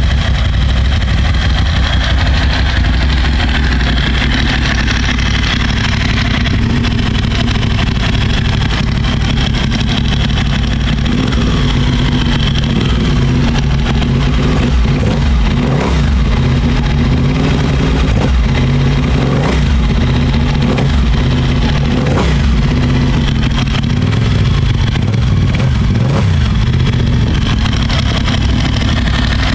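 Moto Morini Corsaro 1200's V-twin engine running through a Termignoni aftermarket exhaust, idling steadily, with a series of short throttle blips that rise and fall in pitch through the second half.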